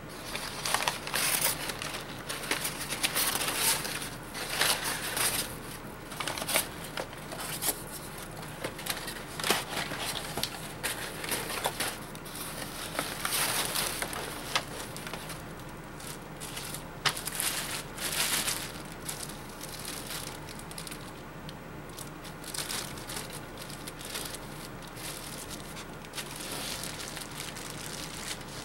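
Crumpled brown packing paper and clear plastic wrap crinkling and rustling in irregular bursts as they are pulled off a rifle, with a few sharp clicks; the handling thins out after about twenty seconds.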